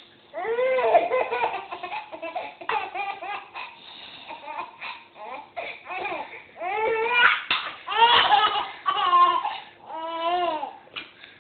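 A baby laughing in a string of high-pitched giggling bursts, starting about half a second in.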